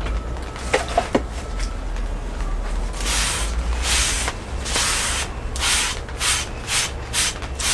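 A cloth rag wiped hard back and forth over a sharpening stone, a run of scrubbing strokes that begins about three seconds in and quickens toward the end. A few light clicks of handling come first.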